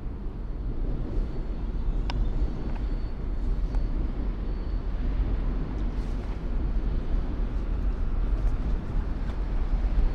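Steady low rumble of city background noise, with a few faint clicks.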